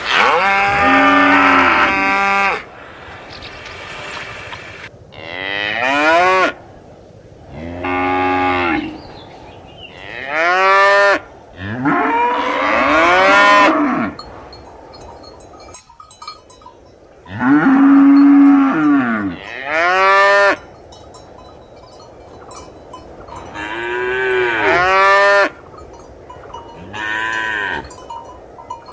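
Cows mooing, about nine separate moos of one to two and a half seconds each, every one rising and then falling in pitch, with short gaps between them.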